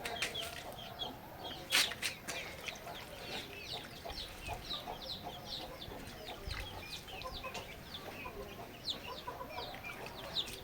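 Chickens calling steadily: a run of short, high-pitched falling chirps, several a second, with a sharp knock about two seconds in.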